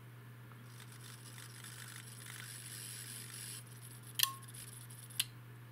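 Teplocom ST-400 voltage stabilizer under power: a steady transformer hum, a harsh hissing buzz for about three seconds, then two sharp relay clicks about a second apart as it switches windings. These are the scary sounds the unit makes while the variac is bringing its supply voltage up.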